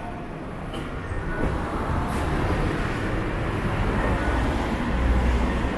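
A train running past with a steady rumble that grows louder.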